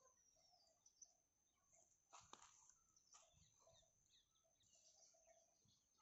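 Near silence: faint birds chirping in the background, with a single soft knock about two seconds in.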